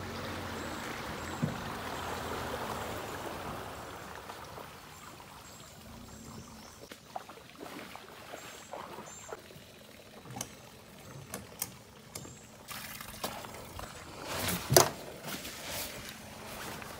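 Water pouring and trickling off a jon boat and its trailer as they are hauled out of the water, fading away after a few seconds. Then scattered clicks and knocks, with one loud knock near the end.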